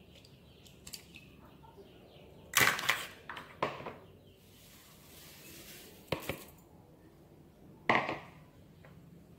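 Sharp clinks and knocks of kitchenware against a glass mixing bowl: a quick cluster a little before the middle, then single knocks about six and eight seconds in. Between them a soft hiss as granulated sugar is poured onto raw eggs in the bowl.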